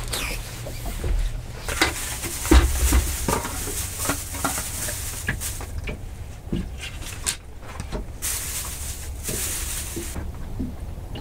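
Scattered clicks, taps and rustling from fishing tackle being handled by hand, over a low steady rumble.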